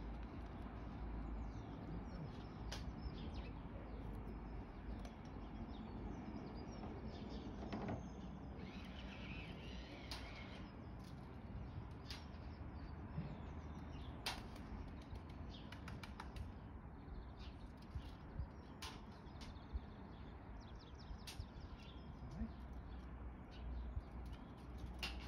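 Faint birds chirping in short scattered calls over a steady low rumble, with a few light clicks and knocks.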